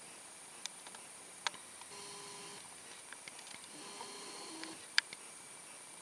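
Night insects chirring in a steady high-pitched drone, with a few sharp clicks, the loudest about five seconds in, and two short faint tones in the middle.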